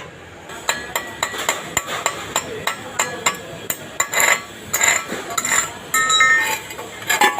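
Irregular metallic clinks and knocks, several a second, some leaving a brief ringing tone: steel being tapped and handled.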